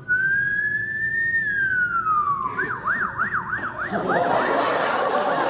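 Vocal imitation of an emergency siren, done into a microphone: one long wail that rises and then falls, switching about two and a half seconds in to a fast yelp that wobbles up and down about four times a second. A rough hissing layer joins the siren about four seconds in.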